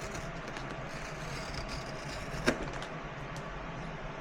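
Steady background hum with one sharp click about two and a half seconds in.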